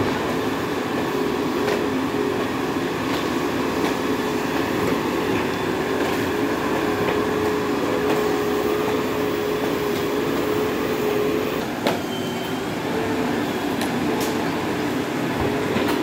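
JCB 4DX backhoe loader's diesel engine running steadily while the backhoe arm works, with a steady whine holding one pitch over the engine noise. A single sharp knock sounds about twelve seconds in.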